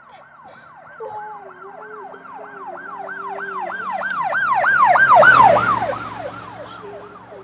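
Emergency vehicle siren in a fast yelp, about three or four rising-and-falling sweeps a second, swelling louder to a peak about five seconds in and then fading away.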